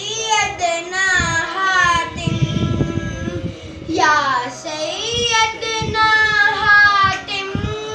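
A boy singing a manqabat, an Urdu devotional poem, unaccompanied, in two long phrases with wavering held notes and a short break between them.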